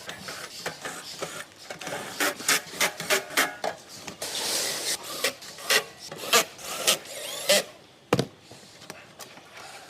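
TIG-250 welding machine's case being fitted back on: a run of clicks and knocks with rubbing and scraping, including a longer scrape about four to five seconds in.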